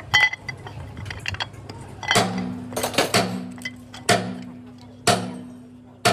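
Metal parts clinking, then sharp hammer-like blows on metal about once a second from about two seconds in, each ringing briefly, over a steady low hum.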